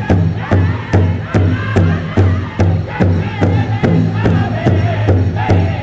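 Powwow drum group striking a large hide powwow drum in unison with drumsticks, a steady beat of about two and a half strokes a second, with the men singing a high powwow song over it.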